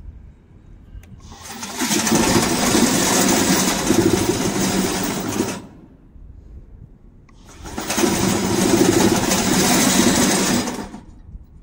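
VTC550-90 remote-control crawler mower running in two spells of about four seconds each. Each spell comes up, holds loud and steady, then dies away, with a faint low hum left between them.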